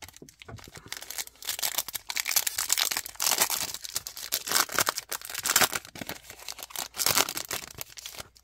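Foil wrapper of a Panini football trading-card pack crinkling and tearing as it is worked open by hand, an irregular run of crackles that comes and goes in loudness.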